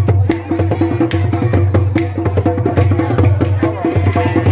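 Loud drum-led music: rapid, sharp drum strikes over a steady low hum.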